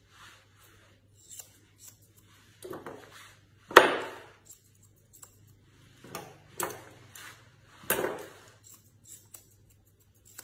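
Grooming scissors snipping at a dog's coat, light clicks, with several knocks as tools and hands move on the grooming table, the loudest about four seconds in. A faint low hum runs underneath.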